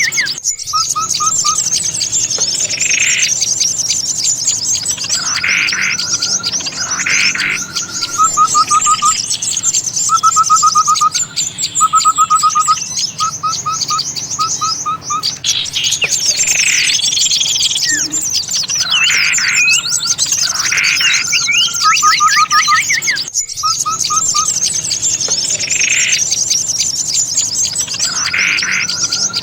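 Bird-trapping lure recording of many small songbirds chirping and calling together, with a rapid trill repeated again and again under dense high chirps. The track drops out briefly about 23 seconds in and starts over.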